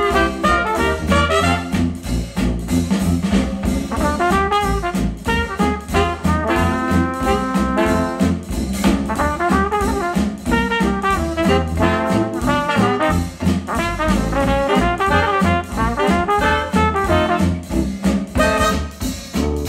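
Jazz instrumental led by brass, played back through a pair of KEF Q350 bookshelf speakers driven by an Audiolab 6000A integrated amplifier.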